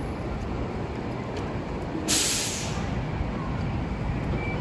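City street traffic rumbling steadily, with one sharp hiss of a heavy vehicle's air brakes about two seconds in, fading within half a second.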